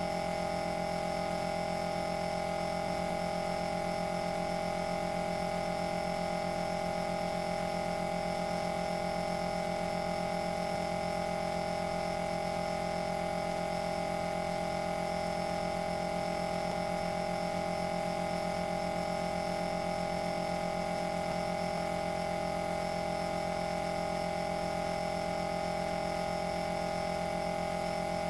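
Steady hum made of several fixed tones, unchanging throughout.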